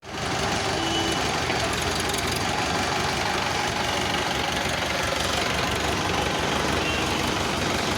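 Sonalika 750 tractor's diesel engine idling steadily, a continuous even knocking rumble.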